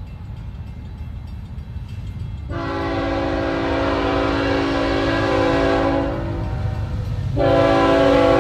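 Horn of an approaching freight train's lead diesel locomotive, a BNSF GE ET44AH, sounding a chord: one long blast starting about two and a half seconds in and lasting about four seconds, then a second long blast beginning about a second before the end. A steady low rumble runs underneath.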